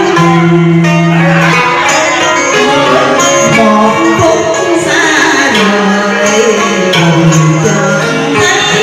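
Vietnamese cải lương theatre music: plucked string instruments playing a melody with sung, held notes over it.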